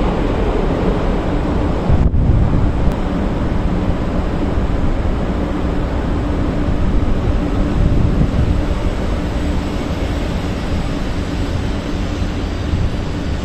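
500 Series Shinkansen train moving slowly along the platform close by: a steady loud rumble with a faint held hum.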